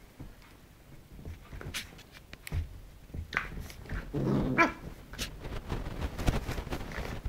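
Puppy growling in play, loudest in a low growl about four seconds in, among short rustles and bumps on the bedding.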